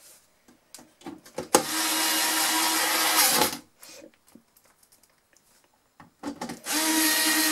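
Electric screwdriver driving screws into the sheet-metal case of a Sony cassette deck: two steady runs of about two seconds each, with a few small clicks as the bit is set before the first.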